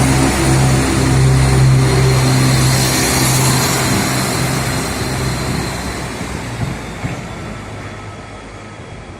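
A train at a station platform, running with a steady low hum that fades away through the second half as it moves off.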